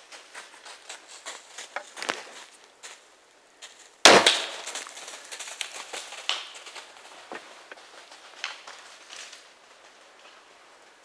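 A sudden loud sharp bang about four seconds in, trailing off over about half a second, amid scattered crackling clicks.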